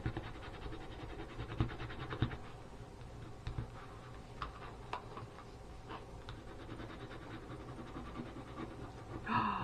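A scratch-off calendar square being scratched off: rapid fine scratching for the first few seconds, then scattered light scrapes and clicks.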